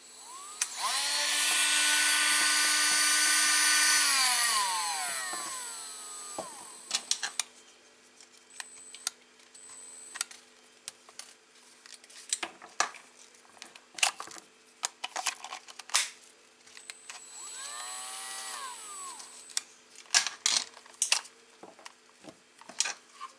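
Cordless Dremel rotary tool running on a home-built replacement battery pack: the motor spins up to a steady high whine, holds for about four seconds, then winds down. Clicks and knocks of the tool being handled follow, with a second short spin-up and wind-down later on.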